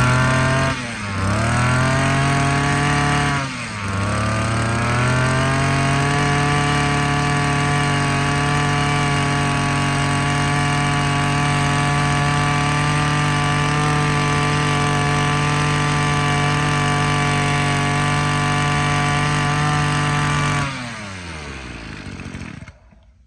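Maruyama 23cc two-stroke brush cutter engine being run: the throttle is blipped twice, then held at steady high revs for about fifteen seconds. Near the end the throttle is released and the engine winds down and stops.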